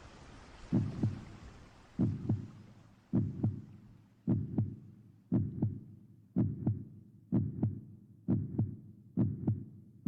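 Heartbeat sound effect: slow paired lub-dub thumps, a little under one beat a second, repeating evenly. A steady rain-like hiss of storm ambience fades out under the first few beats.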